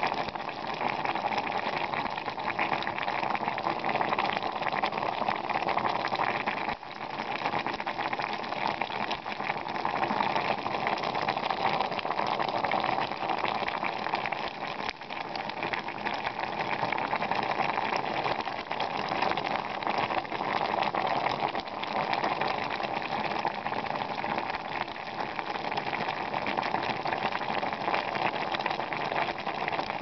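Saucepan of buckwheat groats, rolled oats and carrot boiling in water: steady, dense bubbling.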